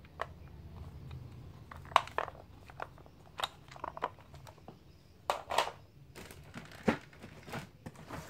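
Hands handling a hard plastic toy submarine: scattered clicks and taps with short crinkling rustles, the loudest click about two seconds in. Near the end, a hand rummages in a cardboard box.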